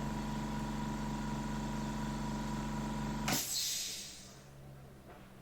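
Bridgeport milling machine running with a steady hum, switched off about three seconds in: the hum stops abruptly with a sharp click, followed by a brief hiss.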